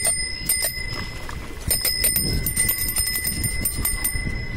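Bicycle bell rung a few times, then rung rapidly for about two seconds from nearly two seconds in, each strike ringing on, over a low rumble.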